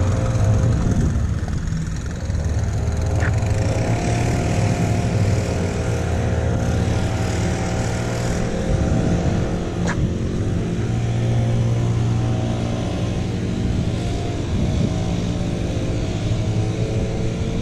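Small gasoline engine of lawn equipment running steadily at a constant speed, with two faint clicks partway through.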